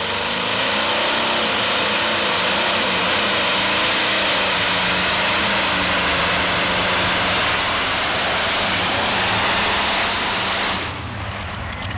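Curtiss-Wright R-3350 radial aircraft engine of a modified pulling tractor, running loud and steady at full power as the tractor pulls the sled down the track. The sound drops away abruptly near the end.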